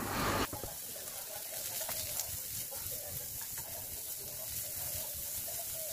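Sliced shallots and garlic sizzling in a granite-coated nonstick frying pan, a steady frying hiss, while a spatula stirs them with a few faint light ticks.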